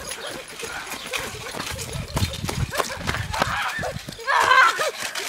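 Running footsteps on grass and rumbling handling noise from a phone carried at a run, then a child's loud shout about four seconds in.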